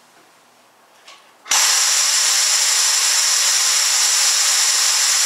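Compressed air jetting from a 1.6 mm nozzle regulated at 5 psi: a loud, steady hiss that starts abruptly about one and a half seconds in, after a faint click.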